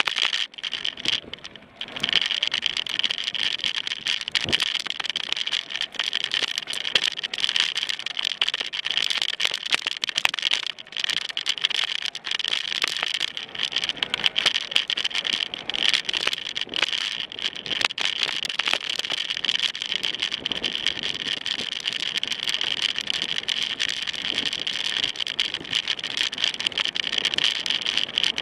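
Mountain bike riding over a rough dirt trail, heard from a camera mounted on the rider: constant irregular rattling and clatter from bumps, over a steady high-pitched hiss.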